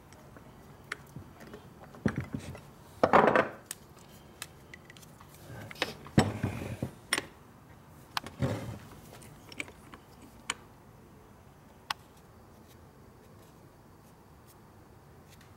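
Metal clicks, clinks and short rattles of Harley Panhead rocker arms and their rocker stands being handled and shifted on a steel-and-aluminium geometry fixture. Several louder rattling bursts come about 2, 3, 6 and 8 seconds in, the loudest around 3 and 6 seconds, with scattered single clicks between.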